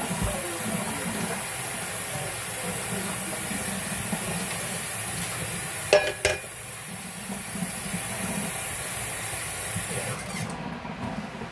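Kitchen tap running as hands are washed under it, a steady hiss that stops when the tap is shut off near the end. Two sharp knocks about halfway through.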